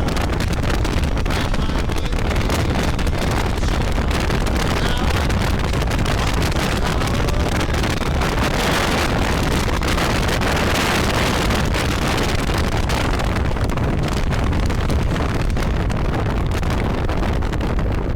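Motorcycle engine running under way on the road, with heavy wind rushing over the microphone; the level stays steady.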